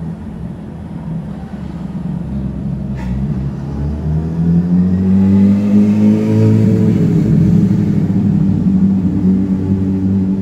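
An engine running, its pitch rising and then easing back down around the middle, with one sharp click about three seconds in.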